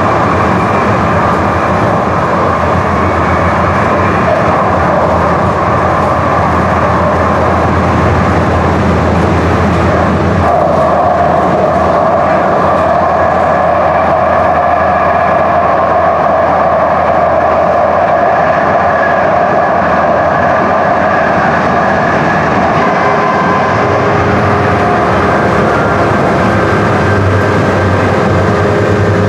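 A DART light rail train running at speed, heard from inside the passenger car: a steady rumble and hum with faint high tones that drift slowly in pitch.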